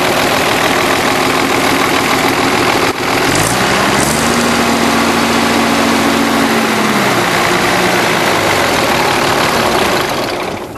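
1955 Allis-Chalmers WD-45 Diesel's six-cylinder diesel engine running loud and steady, its pitch rising for about three seconds and then falling back. Near the end it is shut off and dies away.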